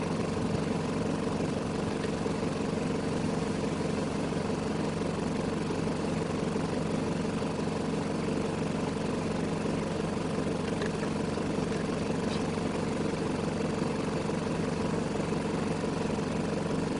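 Vehicle engine idling steadily, a constant hum with no change in speed.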